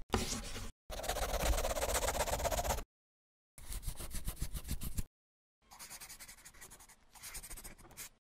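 Scratching sound effect, like a pen drawing on paper, in four separate strokes each cut off to dead silence; the second stroke, about a second in, is the loudest.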